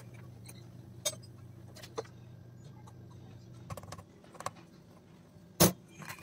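Small plastic clicks and taps as a plastic tub, a spoon and a perforated lid are handled, ending in a sharp, louder click about five and a half seconds in as the lid goes onto the tub. A low steady hum sits under the first half and stops a little before four seconds in.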